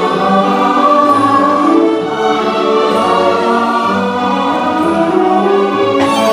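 Orchestral music with a choir singing long held notes.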